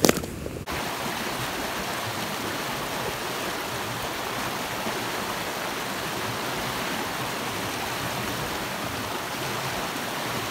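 Small creek rushing over rocks in a shallow rapid: a steady rushing and splashing of water. Right at the start, before the water begins, there is a short loud thump.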